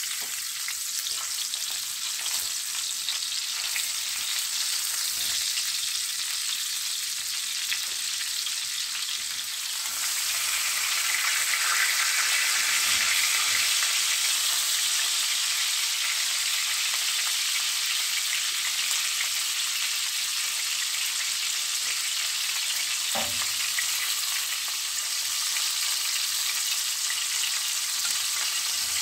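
A beef steak sizzling in foaming butter in a glass baking dish on a gas burner, a steady frying hiss that grows louder about a third of the way in as the meat is moved with metal tongs. A single short knock comes about two-thirds of the way through.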